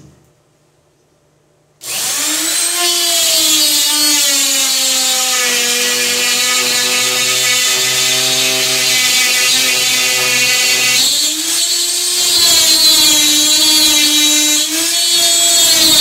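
Router motor switches on about two seconds in and runs with a high, steady whine while cutting into an aluminium door. Its pitch drops and recovers as the bit takes load, with a short dip near the end.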